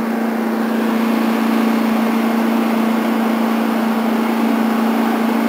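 John Deere D170 lawn tractor's V-twin engine running steadily at a constant speed, an even hum with no revving.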